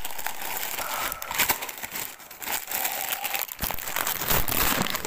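Christmas wrapping paper being torn open and crumpled by hand close to the microphone: a dense, continuous crackle, with a few dull thumps in the second half.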